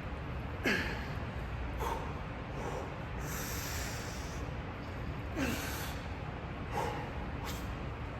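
A person's short, forceful exhales, four in all, each falling in pitch, typical of breathing hard through lifting reps, over steady gym background noise.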